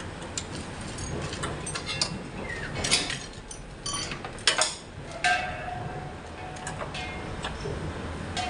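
Clicks and metallic clinks of A/C manifold gauge hose couplers and fittings being handled and connected to a truck's air-conditioning service lines, with a few brief hisses.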